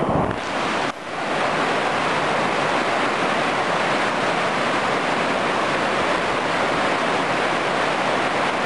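Steady rushing of a river cascade at a cave mouth, an even hiss of falling water, with a brief dip about a second in.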